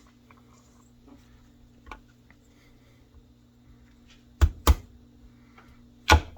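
Folding knife blade chopping down into cooked chicken bone on a board: three sharp strikes, two in quick succession about two-thirds of the way through and one more near the end, over a faint steady hum and small handling clicks.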